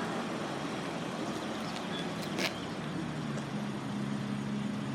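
Steady background noise of road traffic, with a short click about two and a half seconds in and a low steady hum coming in near the end.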